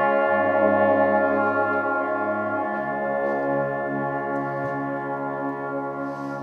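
Brass band holding long sustained closing chords, the low bass shifting about two and a half seconds in, the sound slowly getting quieter.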